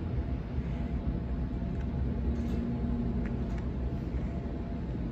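Cabin noise inside a Sydney Trains Waratah B-set electric train on the move: a steady low rumble of wheels on rail, with a faint steady hum from the IGBT-VVVF traction inverter.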